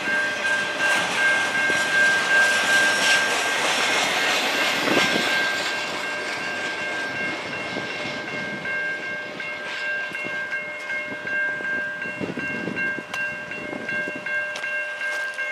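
Intermodal freight train's well cars rolling past at speed: steady wheel-on-rail rumble with scattered clanks, plus a steady high whine. The rolling noise eases off after the first few seconds as the end of the train goes by.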